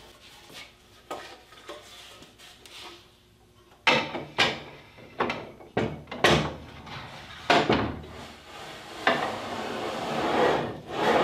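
A board clamped in a metal-bracket carriage being handled and set onto a metal slide rail: a string of sharp knocks and clunks from about four seconds in, then a scraping slide near the end.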